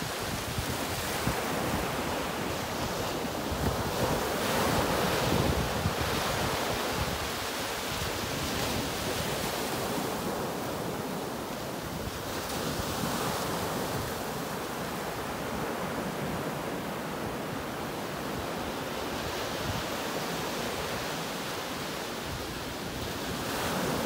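Ocean surf on a beach: waves breaking and foam washing up the sand in a steady rushing wash, swelling louder as each wave breaks, most strongly about four to six seconds in, again around thirteen seconds in, and near the end.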